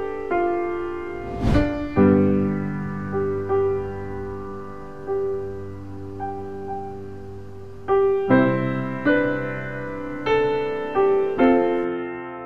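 Background piano music: slow, gently struck notes and chords that ring and die away. One thump across the whole range sounds about a second and a half in.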